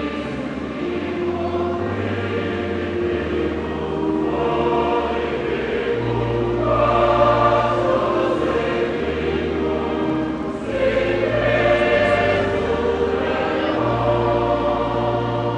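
A choir singing a hymn in several voice parts over an accompaniment of long held bass notes that change every second or two.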